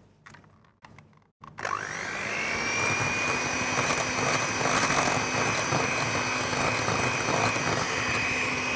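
A few light knocks, then a Moulinex electric hand mixer switches on about a second and a half in: its motor whine rises quickly and holds steady while the beaters churn egg yolks, oil and beetroot purée in a glass bowl.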